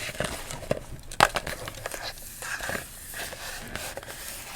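Hands handling a candy canister and wrapped candies: scattered taps and clicks with light crinkling of wrappers, and one sharper click about a second in.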